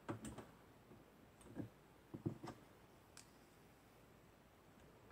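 A few faint, scattered clicks and light taps from hands pulling the SD card out of a DJI Phantom 3 Professional drone's camera.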